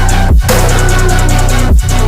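Background music: loud electronic track with heavy bass, drums and guitar, on a steady beat.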